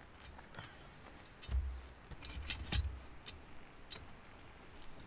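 Metal clinking and knocking from a steel hook-topped hanger pole being handled: a handful of thin clinks bunched about two to three seconds in, with a couple of low thuds among them.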